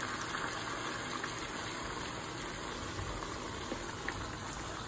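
Water poured from a plastic bowl into a hot wok of curry stir fry, a steady gushing splash into the sauce, adding liquid to loosen it.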